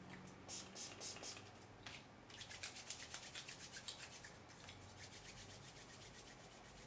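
Hands rubbing in quick brushing strokes: a few strokes in the first second or so, then a fast run of strokes that fades away.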